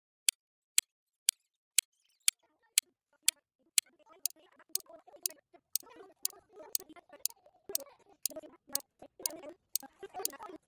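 Clock ticking, sharp and even at about two ticks a second.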